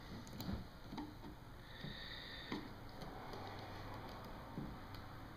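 Faint, scattered ticks and taps of a screwdriver pushing metal glazing points into a wooden window sash to hold the new pane of glass.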